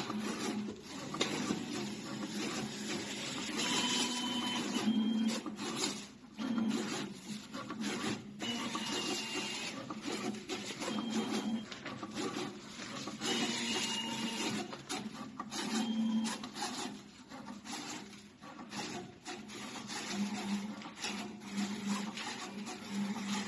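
Automatic contour-cutting label cutters running, a steady mechanical whirring and rattling as the sheets feed and the cutting head moves. Short high whines come and go every few seconds.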